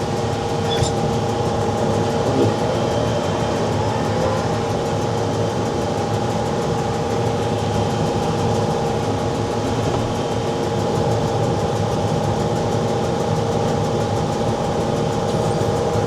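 Case IH Farmall 110C tractor running under load while driving a New Holland BR7060 round baler, a steady even machine sound with a constant hum.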